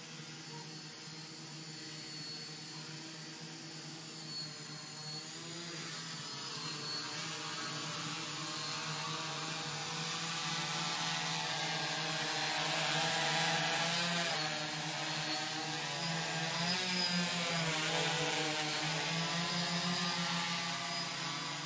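DJI F550 hexacopter's electric motors and propellers humming as it hovers, the pitch wavering with throttle corrections in the second half. The hum grows louder over the first half as the craft comes closer.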